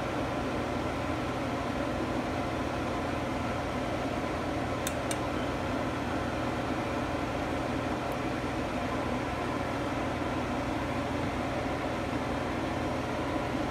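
Steady machine hum and hiss from a running appliance, with two faint clicks about five seconds in.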